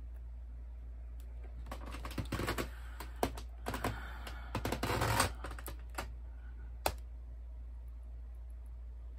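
Small hard-plastic dolls clicking and clattering against each other as they are picked up and moved around by hand. There is a flurry of clicks from about two to six seconds in, then one last sharp click about a second later.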